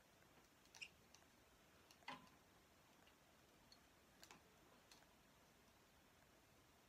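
Near silence: room tone with a few faint, irregular clicks from handling an Arnika curling iron as hair is wound around its barrel.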